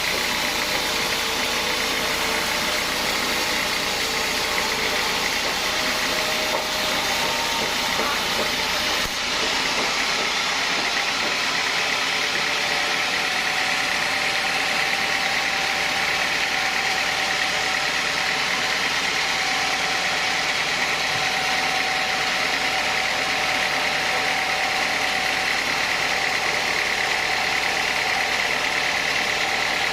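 Sawmill saw running steadily, a continuous loud mechanical noise. About nine seconds in, the low rumble drops away and the noise carries on.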